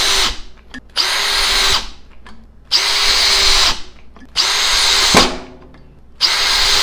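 Makita XGT 40V cordless drill driving long screws into stacked 2x4 lumber, one screw after another. One run ends right at the start, then four more runs of about a second each follow with a steady motor whine, the last starting near the end. Each run stops when the drill's electronic clutch cuts the motor at the set torque.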